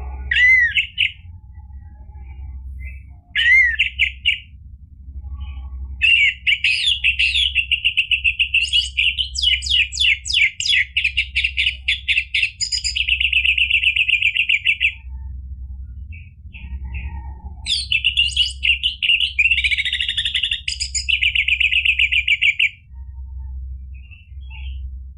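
Orange-headed thrush singing loud, varied song. Two short rising calls come first, then a long phrase ending in a fast trill, and a second long phrase near the end. A low hum runs underneath.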